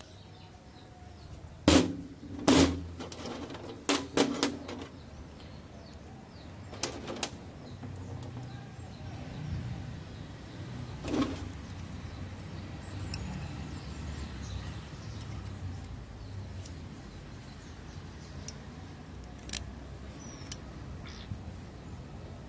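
Sharp metallic knocks and clanks, each with a brief ringing tone, about six in the first dozen seconds, from metal clutch parts being handled and fitted, then only faint ticks over low background noise.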